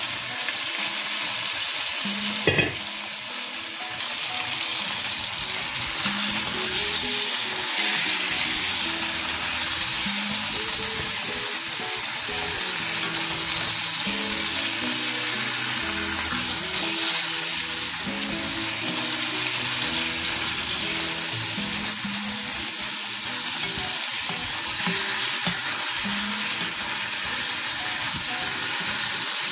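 Chicken and pork pieces sizzling steadily as they fry in oil in a pot, browning, and stirred with a wooden spatula. There is a single sharp knock about two and a half seconds in.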